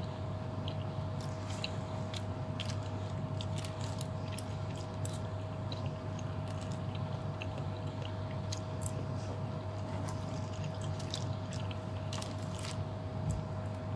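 Metal fork cutting and picking up pieces of chee cheong fun (soft rice noodle rolls) on a plastic sheet, giving small irregular clicks, taps and scrapes over a steady low hum.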